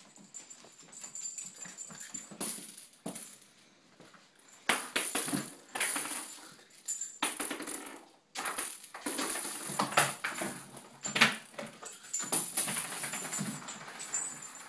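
A cat toy jingling in irregular bursts as a Cairn Terrier plays with it, shaking and batting it about.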